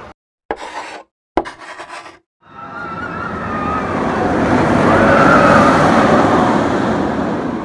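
Roller coaster pass-by sound effect: a rushing rumble with a high wavering whine that swells, peaks midway and fades away, after two brief clipped snatches of sound in the first couple of seconds.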